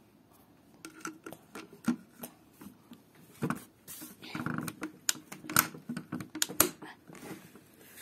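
Sharp plastic clicks and knocks from a Theo Klein Miele Softtronic toy washing machine as its door is swung shut and the plastic machine is handled. The clicks come singly at first and bunch together in the second half.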